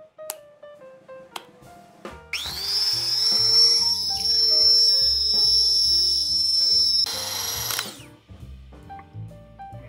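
Electric hand mixer beating eggs into a wet banana-butter mixture in a glass bowl. Its motor spins up with a rising whine about two seconds in, holds a loud steady high whine, and stops abruptly about eight seconds in.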